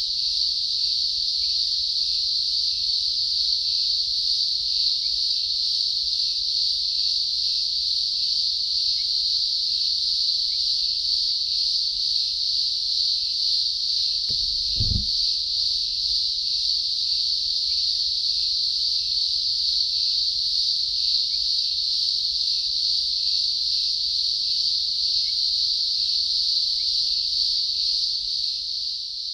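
Chorus of male Cyclochila australasiae cicadas calling to attract females: a loud, steady, high-pitched drone. A brief low thump comes about halfway through, and the drone starts to fade at the very end.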